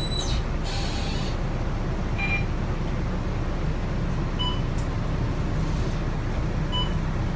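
Volvo B9TL double-decker bus running, heard from inside the lower deck: a steady low engine and road rumble. Two short, faint beeps come, one about halfway through and one near the end.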